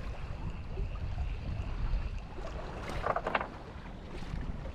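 Wind rumbling on the camera microphone over sea water lapping against the side of a small fishing boat, with a short burst of noise about three seconds in.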